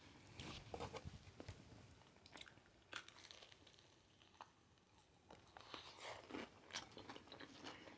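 Close-up biting and crunchy chewing of Hot Cheeto-coated fried pickles, with a run of crisp crunches in the first second or so and again from about five seconds in.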